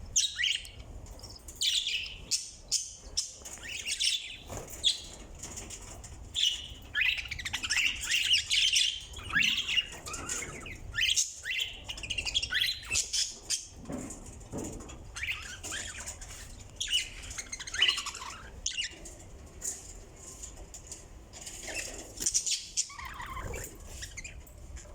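Pet budgerigars and cockatiels chirping and squawking in a busy, irregular chatter of short high calls, with many calls overlapping.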